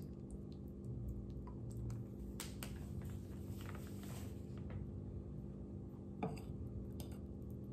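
A fork stirring powdered mold mix into water in a glass bowl: light clicks of the fork against the glass and a soft wet squishing, with a stretch of rustling through the middle.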